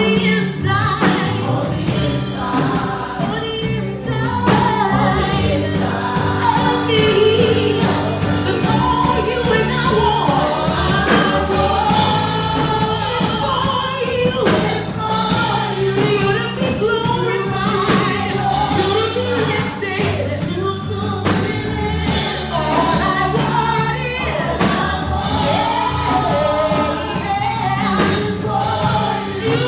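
Live gospel praise-and-worship singing: singers with a full band playing a worship song.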